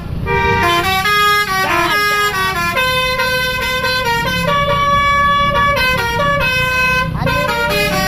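A coach's basuri telolet horn playing a tune as a string of held notes that step from pitch to pitch, over the bus's engine running.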